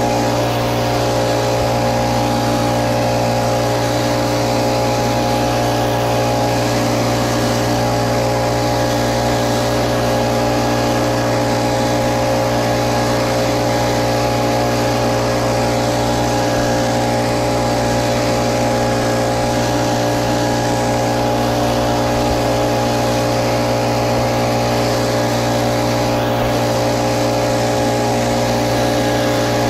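Little Wonder Optimax walk-behind leaf blower running steadily: its small gasoline engine makes an even, unchanging drone along with the blower fan's rush of air.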